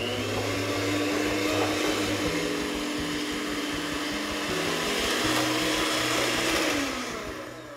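Handheld electric mixer running, its beaters whirring through pumpkin pie filling in a glass bowl; the motor runs steadily, then winds down and stops near the end.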